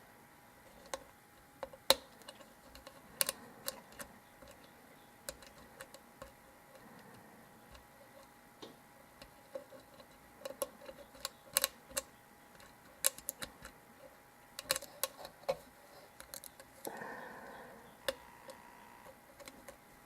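Irregular light metallic clicks and ticks of a lock pick and tension wrench working the pins of a Zeiss Ikon euro cylinder, being single-pin picked. A brief scraping sound comes about three quarters of the way through.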